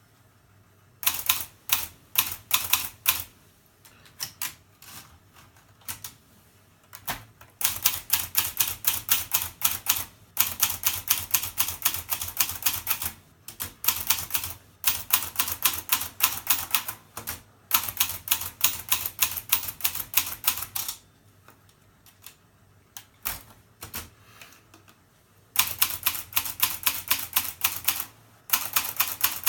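Hermes Baby portable typewriter being typed on: runs of quick sharp key strikes, several a second, in bursts with short pauses between them.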